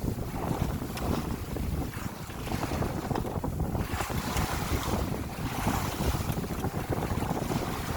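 Wind buffeting the microphone over water rushing and splashing along the hull of an Adams 24 yacht under sail, with gusts rising and falling.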